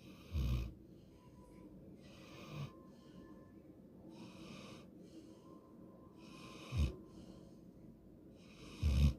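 Golden retriever snoring in its sleep: slow, airy breaths about every two seconds, four of them ending in a short, low snort, the last the loudest.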